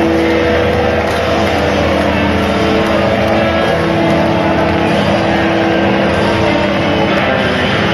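Football stadium crowd in full voice: a loud, steady roar of cheering with held sung notes running through it.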